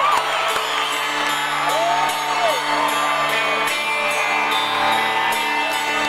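Live rock band playing through an arena PA: sustained guitar chords over a bass note that steps lower about halfway through. A few whoops and whistles from the crowd ride over the music in the first half.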